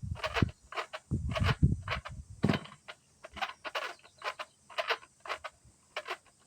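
Recoil starter of a Kubota KC2750Hb brush cutter engine being pulled, giving an irregular run of clicks and rattles as the mechanism catches. The engine does not fire; the rattling is a fault in the recoil or engine.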